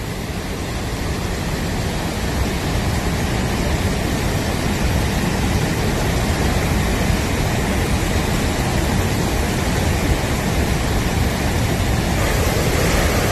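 Muddy floodwater pouring over the overflowing Siji Dam spillway and churning below it: a loud, steady rushing of water.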